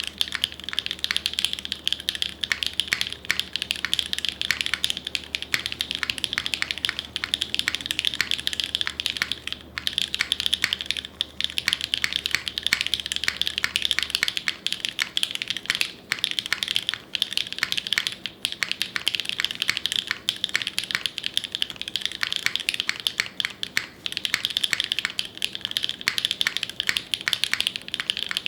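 Fast, continuous typing on an NRD Oku custom mechanical keyboard with Gateron Deeping switches, GMK ABS keycaps, an aluminium plate and a gasket mount. The keystrokes run as a dense stream of clicks, with a few brief pauses.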